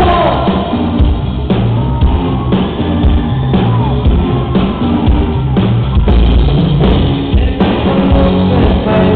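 A live pop band playing loud, with drums, bass and guitar keeping a steady beat and a voice singing at times. The sound is dull and bass-heavy, with no highs, as from a camcorder or phone in the audience.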